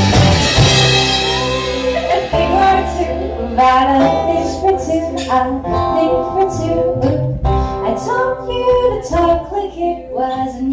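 Live band playing a song with women singing. A full band sound with ringing cymbals dies down over the first couple of seconds, leaving strummed guitar under the voices.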